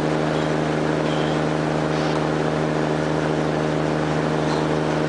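Tugboat's diesel engine running steadily under load while towing, a constant low drone with a steady hum.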